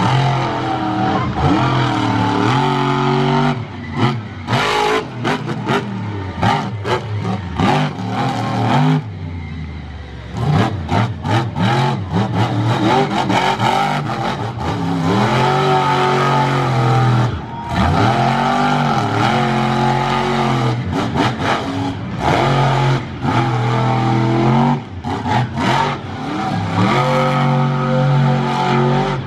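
Monster truck engine revving hard during a freestyle run, its pitch climbing and falling again and again as the throttle is worked, with brief drops when it lets off.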